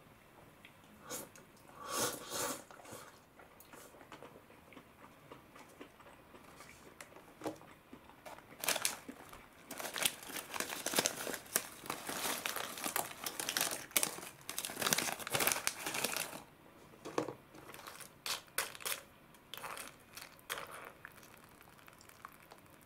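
Foil snack bag crinkling in irregular bursts as it is handled and Ottotto crackers are shaken out of it into a cup of udon. The crinkling is densest about halfway through.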